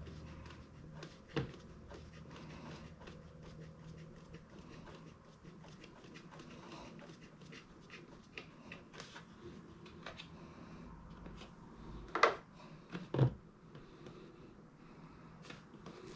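Wrench loosening the oil drain bolt on an air compressor's pump crankcase: faint clicks and scrapes of metal handling, with two sharper knocks about twelve and thirteen seconds in.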